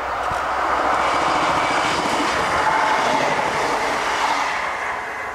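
Class 158 diesel multiple unit passing through the station at speed. The rush of the train and its wheels on the rails builds to a peak about two to three seconds in, then eases off near the end.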